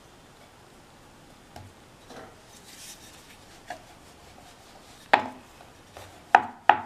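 Rolling pin working a small disc of floured dough on a round wooden chapati board. It starts with faint rubbing and light taps, then about three sharp wooden knocks in the last two seconds as the pin and board knock together during rolling.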